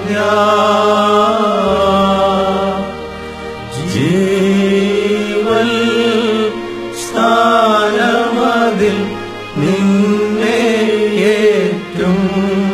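Slow, chant-like singing by a solo voice, long wavering notes in a melody that rises and falls, over sustained low accompanying notes; a new sung phrase begins about every three seconds.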